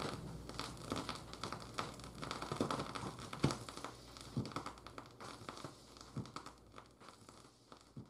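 Vinyl record surface noise from a Shure cartridge's stylus riding the groove: irregular crackles and pops over a faint hiss, a few a second, thinning out and fading away near the end.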